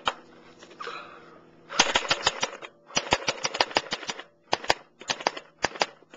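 Walther G22 airsoft rifle firing on full auto: four short bursts of rapid sharp shots, about ten a second, the first starting nearly two seconds in.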